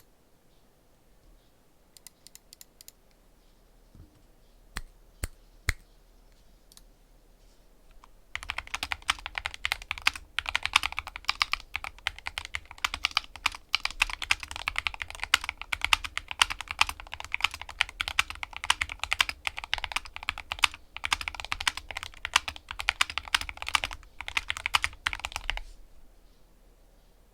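Skyloong SK64S keyboard with Gateron optical red linear switches, lubed with Krytox 205g0 and dampened with 5 mm foam, being typed on fast and continuously for about seventeen seconds. A few scattered single clicks come before the typing starts, and it stops shortly before the end.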